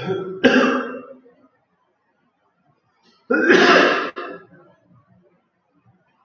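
Someone close by clearing their throat loudly twice, once right at the start and again about three seconds later.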